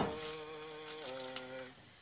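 A girl singing a held, buzzy note that steps to a new pitch about a second in and stops shortly before the end, with a sharp knock at the very start.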